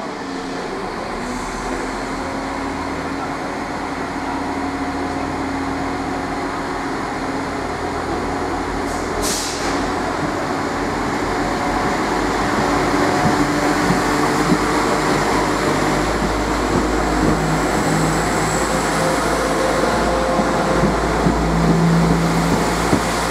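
Class 172 Turbostar diesel multiple unit pulling away, its underfloor diesel engines running with steady notes and growing gradually louder as the train accelerates past. A short hiss about nine seconds in.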